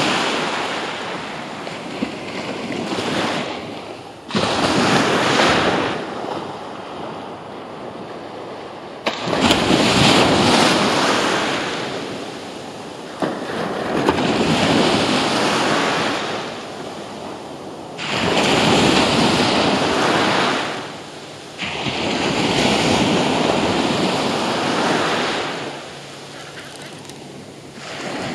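Small surf waves breaking and washing up a sandy beach, the rush swelling and easing every few seconds, with wind on the microphone.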